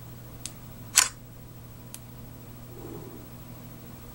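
A single sharp click about a second in, with a faint tick before and after it, over a steady low hum.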